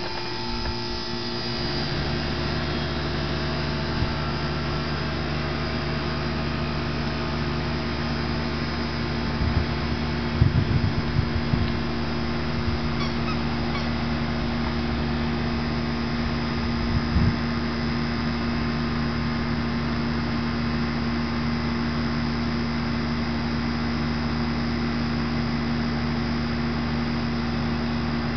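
A steady hum of several held tones that starts abruptly and holds unchanged, with a few brief low bumps about ten seconds in and again near seventeen seconds.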